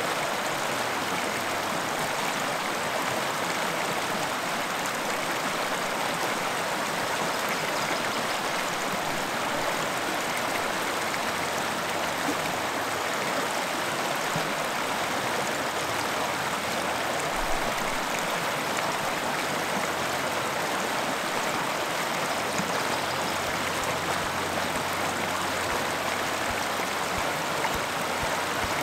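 Fast-flowing creek rushing steadily over stones.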